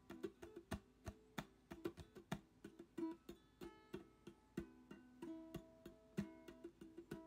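Background music played on a plucked acoustic guitar, a quick run of picked notes.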